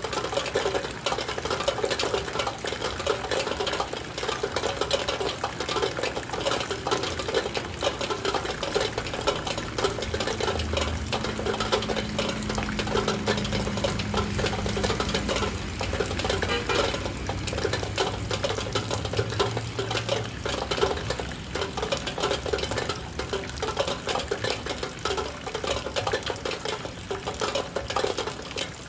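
Heavy rain falling on a window, a steady, dense patter of drops. A faint low hum comes in underneath about ten seconds in and fades out about ten seconds later.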